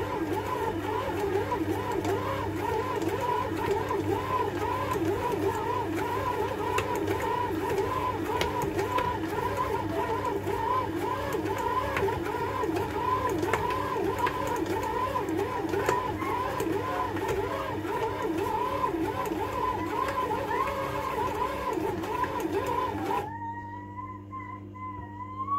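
Bread machine motor kneading a ball of chapati dough: a steady hum with a regular wobble as the paddle turns the dough. Near the end the machine noise drops away suddenly, leaving only a faint wavering tone.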